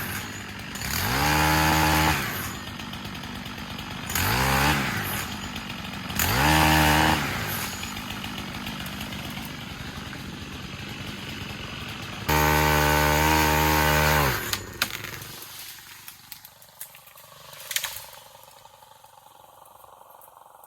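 Stihl pole saw's motor revving up and down in four bursts as it cuts, each rising then falling in pitch, the last one the longest, with a lower steady sound between them. A sharp crack sounds near the end.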